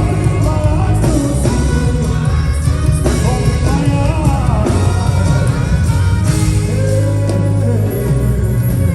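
Live worship band music with a heavy bass line, guitar and a wordless vocal line gliding over it.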